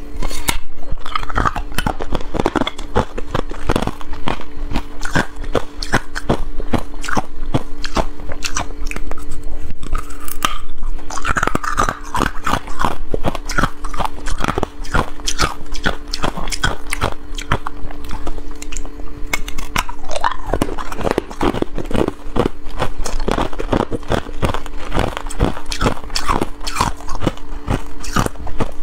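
Hard ice cubes being bitten and chewed: a continuous, irregular run of crunches, with a steady hum underneath.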